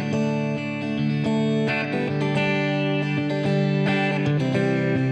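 Background music: a guitar-led track with strummed and plucked notes playing steadily.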